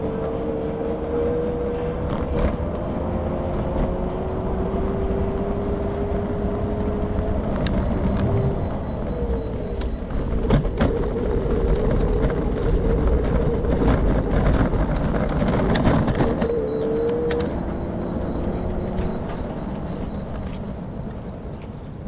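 Road traffic: motor vehicles running past with a low rumble, their engine notes rising slowly as they accelerate. It grows louder about halfway through, then eases off near the end.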